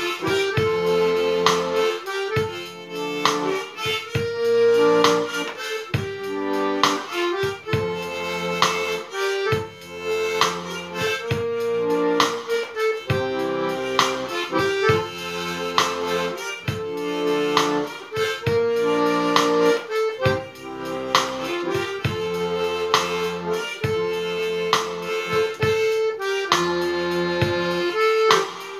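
Harmonica on a neck holder playing the melody over a piano accordion, which keeps a steady bass-and-chord beat.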